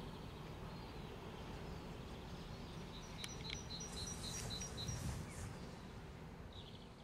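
Outdoor ambience: a steady low rumble with a small bird chirping a quick run of about seven short notes midway.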